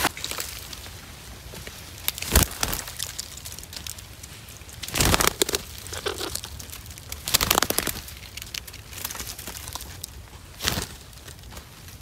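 Rustling and crackling, like dry leaves and grass being brushed, in four short bursts a couple of seconds apart over a low steady background.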